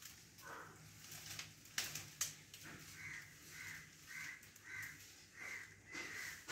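A crow cawing over and over, about two calls a second, starting about three seconds in. Two sharp snaps about two seconds in.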